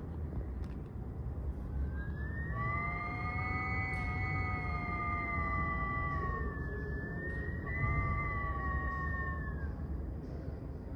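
Wind whistling through a crack: a wavering whistle of several tones at once, over a low wind rumble. The whistle swells in about two seconds in, dips briefly after six seconds, comes back, and fades out near the ten-second mark.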